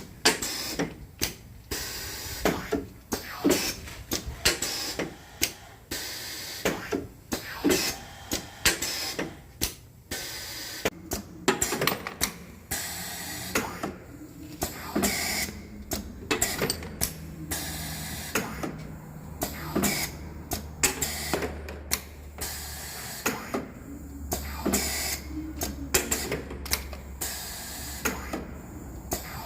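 Automotive parts sorting machine running: rapid, irregular clicks and clacks as parts are fed through and sorted, with a steady low hum that grows stronger about halfway through.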